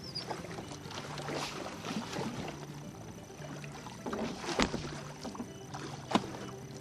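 Water splashing and sloshing at a fishing boat as a hooked catfish is brought in, with two sharp knocks, the later one near the end, over a steady low hum.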